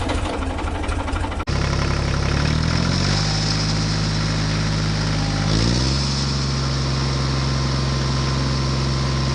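An engine running steadily, revving up in pitch a couple of seconds in and again around the middle, then holding at the higher speed.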